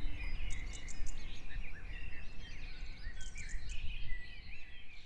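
Countryside ambience: many birds chirping and twittering, with short high insect-like chirps, over a steady low rumble.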